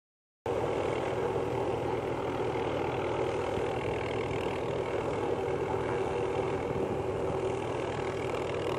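Small helicopter flying slowly while pulling a transmission-line stringing line, its engine and rotor making a steady drone. The sound cuts in about half a second in.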